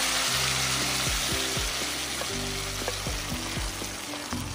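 Blended green salsa poured into hot oil in a frying pan, sizzling hard at first and easing off a little as it fries. A spoon stirs through it near the end.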